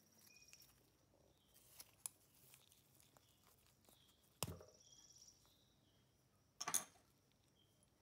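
Quiet handling of rusty pocket-knife parts in gloved fingers: faint scraping as a rusty spring piece is worked free of its steel liner, with a sharp metallic click about halfway and a louder clack near the end.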